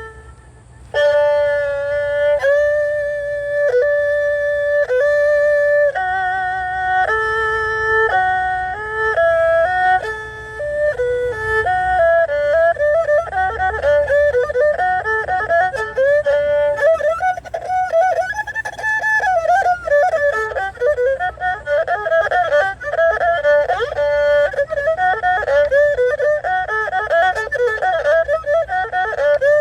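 Solo erhu, unaccompanied. After a brief pause it plays held, steady bowed notes; from about halfway through these give way to fast trills and warbling runs that imitate bird calls.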